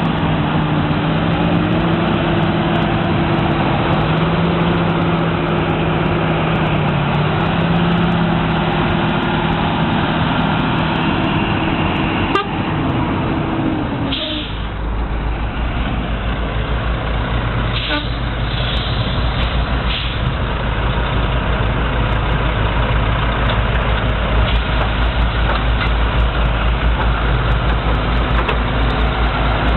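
Large John Deere tractor diesel engines working hard, their pitch stepping up and down as the throttle changes. About halfway through, the sound changes abruptly to a deeper, fast-pulsing heavy diesel rumble, with a few short hisses soon after.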